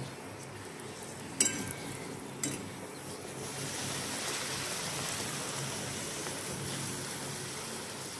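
Luchi deep-frying in hot oil in a kadai: a steady sizzle that grows fuller about three and a half seconds in. Two short sharp knocks come about a second and a half and two and a half seconds in.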